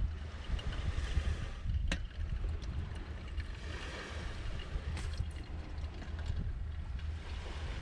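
Wind buffeting the microphone with a steady low rumble, over a soft even wash of outdoor noise. Two light clicks come through, about two seconds in and again near five seconds.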